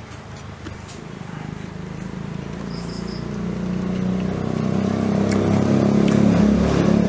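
A motor vehicle's engine hum growing steadily louder as it approaches, from about halfway through. Three short high chirps sound about three seconds in.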